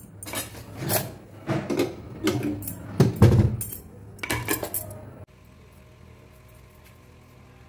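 Kitchen utensils and dishes clattering and clinking on the counter in a run of irregular knocks. About five seconds in it cuts off abruptly, leaving a faint steady hum.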